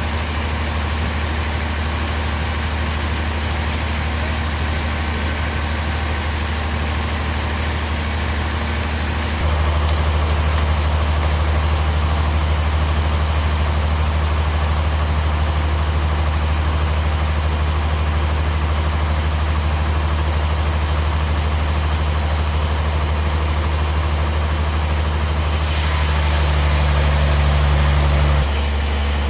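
Bandsaw sawmill running with a steady low hum. About a third of the way in the hum shifts in tone and grows louder. Near the end a hiss joins it for a few seconds, then both drop back shortly before the end.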